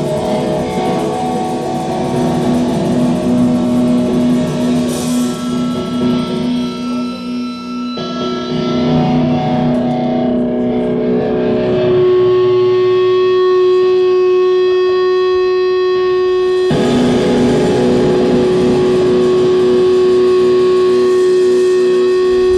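Distorted electric guitar through an amplifier, holding long ringing chords that change every few seconds, with no drums.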